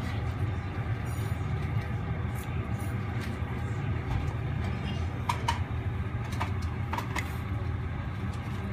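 Steady low rumble of restaurant room noise, with a few light clicks in the second half as wooden chopsticks tap against the cast-iron platter and ceramic side dishes.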